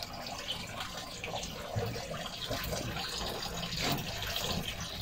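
Water steadily trickling and splashing into the water tubs and tanks of a small fish setup.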